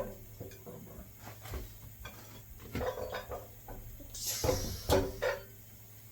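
Metal clanking and scraping as a pry bar works against engine parts: a few scattered knocks, then a louder scrape and clank, with some ringing, about four and a half seconds in.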